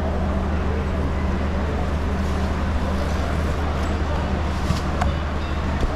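Busy street ambience: a steady low engine or generator hum under a constant wash of noise and indistinct background voices, with a few faint clicks.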